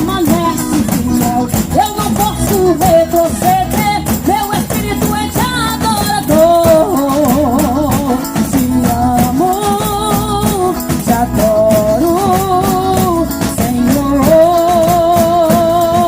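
Gospel worship band playing an upbeat instrumental introduction: a bending lead melody over a steady, fast percussion beat.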